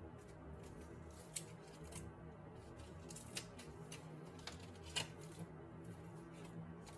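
Faint clicks and rustles of photocards and their plastic sleeves being handled, over quiet background music.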